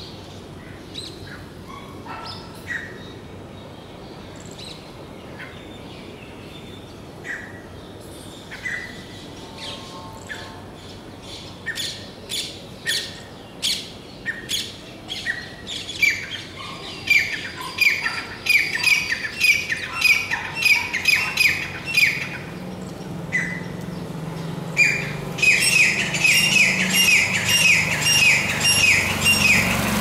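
Male grey francolin calling. It starts with scattered single notes, then builds about halfway through into a loud, fast series of repeated notes that carries on to the end.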